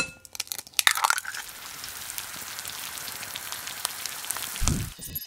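An egg cracking in a burst of sharp clicks during the first second or so, then the steady hiss of an egg sizzling in a frying pan, with a low thump just before the end.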